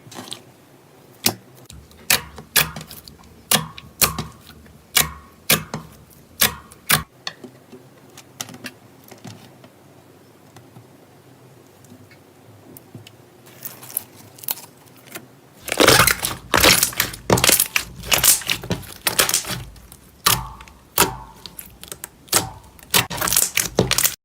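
Soft slime giving sharp, sticky pops and crackles: a few a second at first, a pause of several seconds in the middle, then a dense run of crackling pops in the last eight seconds.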